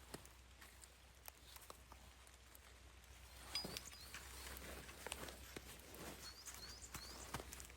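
Faint outdoor quiet broken by scattered small clicks and taps, with a louder cluster about halfway through. Near the end a small bird calls three short rising chirps.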